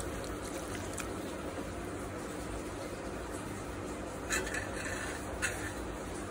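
Low steady background noise with two light clicks, about four and five and a half seconds in.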